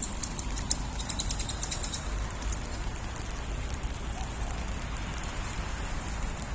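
Steady hiss of rain over a low city rumble. A quick run of light ticks comes in the first two seconds.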